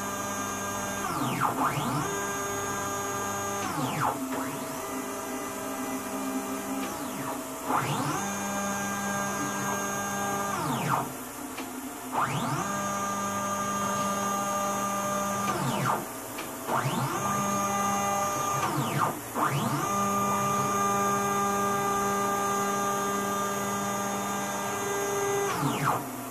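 Stepper motors of a DIY Gatton Sidewinder-style CNC router moving its axes with no router spindle mounted. It makes a series of about seven pitched whines: each rises in pitch as the motor speeds up, holds steady while the axis travels, then falls as it slows to a stop, with short pauses between the moves.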